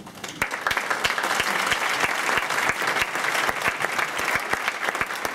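Audience applauding, breaking out about half a second in and keeping up as a steady round of clapping.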